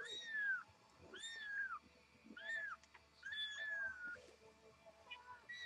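Very young Siamese kittens mewing: about five high, thin calls roughly a second apart, each rising then falling in pitch. The fourth call is drawn out longer.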